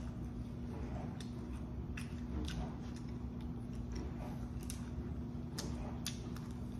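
A person chewing food close to the microphone: wet mouth clicks and smacks at irregular intervals, over a steady low hum.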